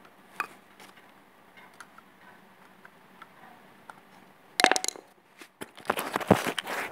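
A few small clicks and ticks, then loud rustling and knocking close to the microphone from about four and a half seconds in as the phone is handled.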